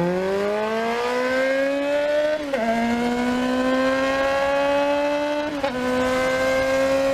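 A vehicle engine accelerating hard, its pitch climbing steadily and dipping briefly twice, about two and a half and five and a half seconds in, as it shifts up through the gears.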